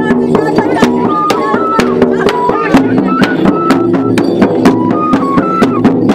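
Large hide-headed Baganda drums (ngoma) beaten with wooden sticks in a fast, even rhythm, with a high melody of held notes stepping up and down over the drumming.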